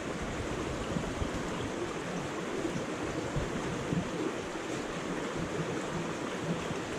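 Mountain stream water rushing steadily over rocks and plunge pools, an even hiss.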